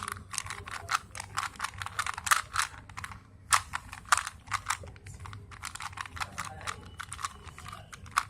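A 3x3 Rubik's cube being scrambled by hand: its plastic layers are turned in quick succession, giving a rapid, irregular run of clicks and clacks, with a brief pause about three seconds in.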